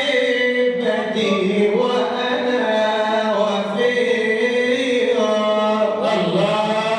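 Male chanting of a Sufi madih, a sung praise poem for the Prophet, in long held notes that bend and waver.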